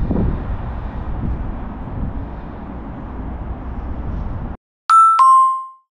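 Steady low rumble of city ambience on a rooftop, with a background hum like distant traffic. Near the end it cuts off abruptly and a two-note chime sounds, the second note lower and ringing out briefly.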